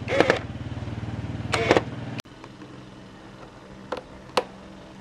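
A small motorbike engine idling steadily, then cutting off abruptly about two seconds in. Several short, high, chirping squeaks sound over it, twice while the engine runs and twice after it stops.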